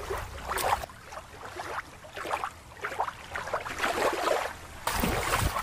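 Outdoor water and wind noise: shallow water lapping at a rocky shore, then open sea with irregular rushing swells.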